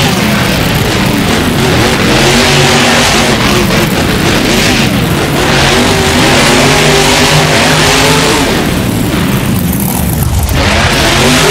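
Monster truck engine running loud and revving up and down again and again.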